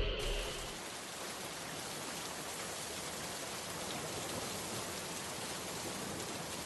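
Steady rush of a waterfall's falling water, an even hiss without any pitch or rhythm.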